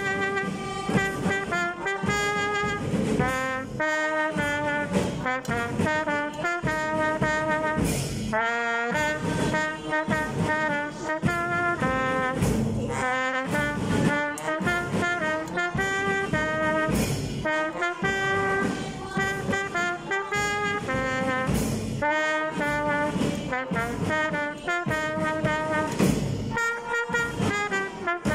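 School brass band playing an anthem: brass carries the melody over steady bass drum beats.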